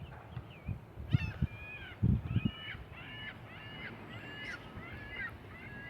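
A bird calling over and over in short, quick pitched calls, about three a second, starting about a second in. A few low thumps sound near the start.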